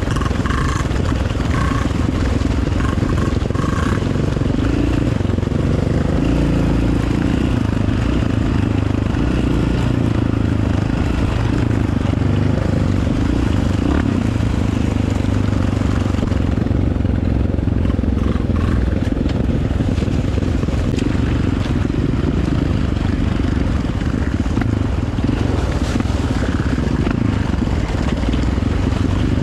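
Dirt bike engine running steadily while being ridden.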